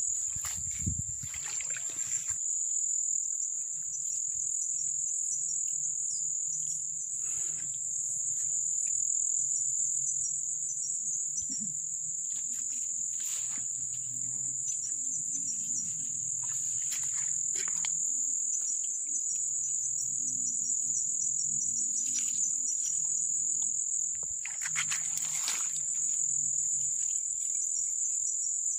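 A steady, high-pitched insect chorus, with scattered short rustles and knocks that are loudest about a second in and again a few seconds before the end.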